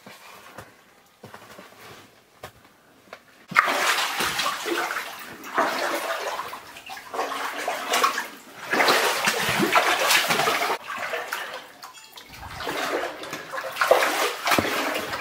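Rubber boots wading through water in a flooded mine tunnel, each stride sloshing and splashing in repeated surges. The splashing starts suddenly about three and a half seconds in, after a few faint steps.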